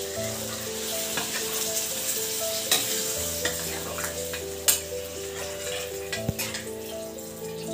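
Water poured from a steel jug into a kadai of simmering chicken curry, sizzling as it hits the hot gravy, while a ladle stirs and knocks against the pan about three times. A background tune of changing notes plays underneath.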